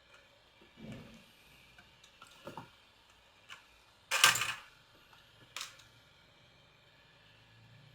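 A few separate light knocks and clicks of small tools being handled and set down on a repair bench, the loudest a sharp clack about four seconds in.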